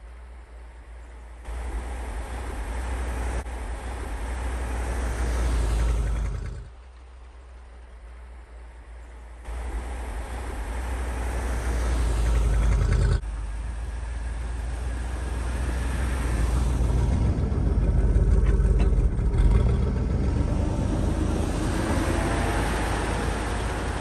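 Old Ford pickup's engine revving hard as the truck pushes through deep snow, its wheels churning snow. The engine note swells and cuts off suddenly about six seconds in, comes back a few seconds later and climbs again, then keeps running strongly.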